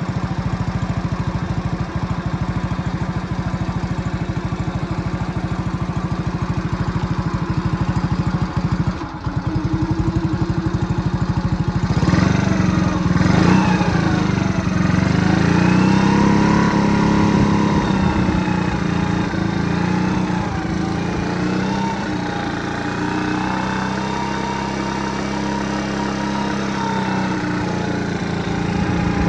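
Exhaust note of a modified Honda Super Cub AA01's single-cylinder four-stroke engine through a Chinese aftermarket muffler whose crack has been welded shut. It idles with an even beat, then about twelve seconds in is revved up and held at a higher, steady speed.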